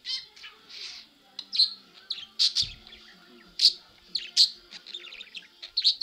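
Pet budgerigar chirping and chattering in a stream of short, rapid, high-pitched chirps.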